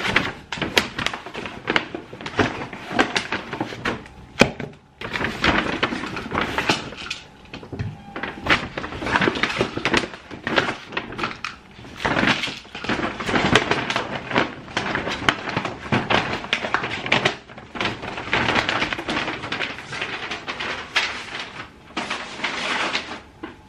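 Paper grocery bags rustling and crackling as shopping is unpacked, with repeated knocks and thunks of items being set down on a kitchen counter.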